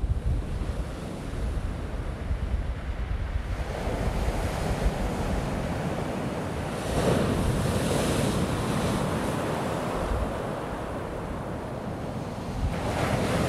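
Ocean surf breaking on a beach: a steady wash of waves with louder surges as breakers crash, about 3.5 s, 7 s and 13 s in. Wind buffets the microphone, adding a low rumble.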